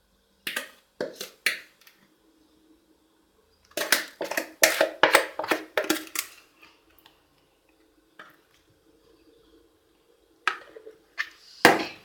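A spoon scraping and clinking against a bowl and a mug as thick cake batter is spooned across, in three bursts of quick scrapes and taps, with a heavier knock near the end.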